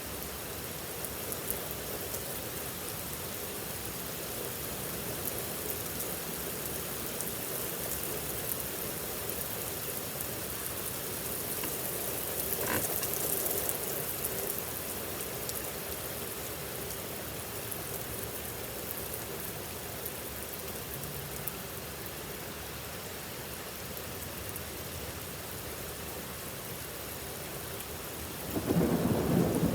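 Heavy rain falling steadily, with a rumble of thunder starting near the end.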